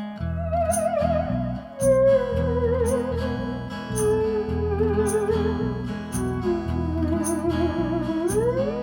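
Live band playing an instrumental solo: a lead line with wide vibrato slides slowly downward between notes, then glides back up near the end, over a steady bass line and regular percussion ticks.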